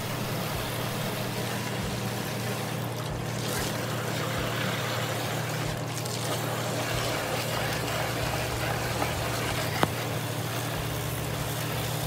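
Water spraying from a hose into a window air conditioner's blower housing, a steady hiss and splash over a steady low mechanical hum, with a brief tick about ten seconds in.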